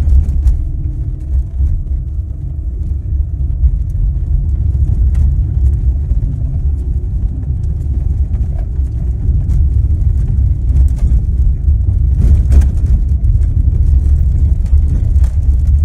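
Lada Granta FL driving over bumps: a steady low road rumble with occasional short knocks from the suspension going over bumps, one stronger knock about three quarters of the way through. No squeak is heard: the squeak has been cured.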